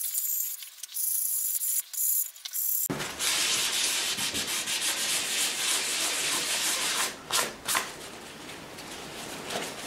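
Hand sanding of a bare wooden guitar body with a sanding block: back-and-forth scratchy strokes of abrasive paper on wood. About three seconds in the sound cuts to a fuller, steady rubbing that eases off near the end.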